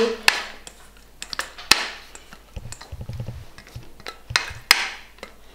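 A silicone spatula knocking and scraping against an enamel colander as cooked rice is tipped out into a frying pan: a handful of sharp taps spread over several seconds, with some dull thuds in the middle.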